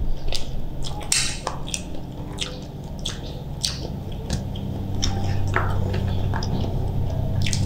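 Close-up eating sounds from a seafood boil: wet chewing and squishes, with many short sharp clicks and crackles as shellfish shell is picked at and bitten.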